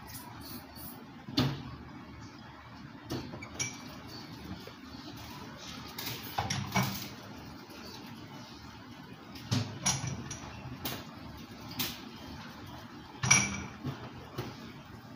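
Scattered clinks and knocks of ceramic tableware and chopsticks on a meal tray, over steady room noise; the loudest, near the end, is a clink that rings briefly.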